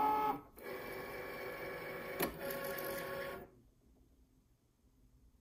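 Cricut Maker cutting machine loading its mat: a short steady tone as the load button is pressed, then its motors run for about three seconds, drawing the mat in and moving the tool carriage across, with one click partway, before stopping suddenly.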